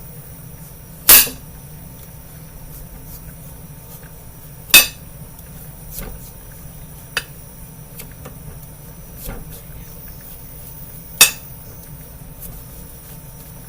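Three loud, sharp knocks of hard objects, about a second in, near five seconds and near eleven seconds, with a few fainter taps between them over a steady low hum.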